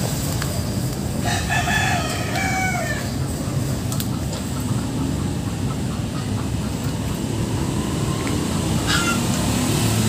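A rooster crowing once about a second in, a call lasting under two seconds, with a shorter call near the end. A steady low rumble runs underneath.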